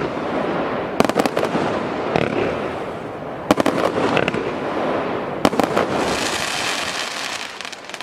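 A 100-shot, 25 mm firework cake firing. A sharp bang comes about every two seconds, each followed by a burst of crackling. Near the end a hissing crackle takes over and fades.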